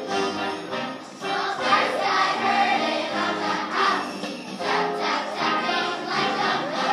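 Children's choir singing a Christmas song to a musical accompaniment, with jingle bells sounding.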